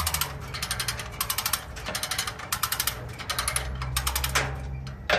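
Steel Core 4-ton come-along cable puller being cranked by hand. Its ratchet pawl clicks in a quick run with each stroke of the handle, stroke after stroke, as the cable winds in under load.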